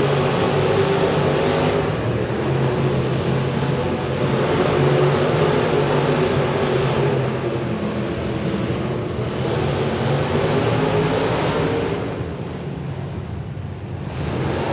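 Demolition derby cars' V8 engines running and revving hard together, with a brief lull about twelve seconds in.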